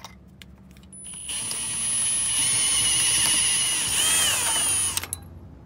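An electric drill with a 3/16-inch bit drills out a rivet holding a fuel-line clip under a car. It starts about a second in, runs with a steady high whine for nearly four seconds, its pitch dips briefly near the end, and then it stops abruptly.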